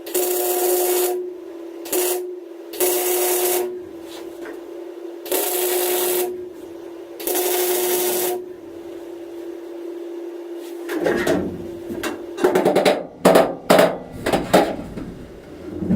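MIG welder laying tack welds on 18-gauge sheet-steel floor panels: about five crackling, hissing bursts of roughly a second each over a steady hum. Near the end comes a quick run of hammer taps on the sheet metal.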